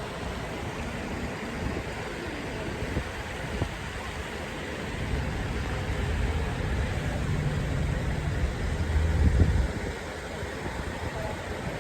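Wind buffeting the microphone: a gusty low rumble over a steady rush that swells in the second half and drops off suddenly near the end.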